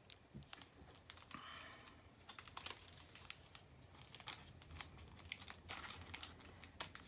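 Faint crinkling and scattered light clicks of a granola bar's plastic wrapper being handled and turned over.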